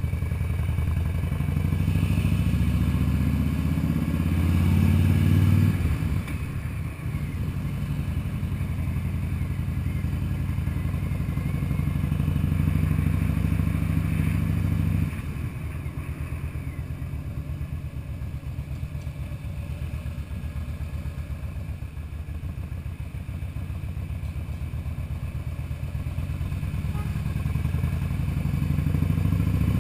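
Harley-Davidson Fat Boy's V-twin engine riding through traffic. It pulls up in pitch over the first few seconds, drops sharply about six seconds in, and runs steadily. It falls off to a lower, quieter note about halfway through, then builds slowly again near the end.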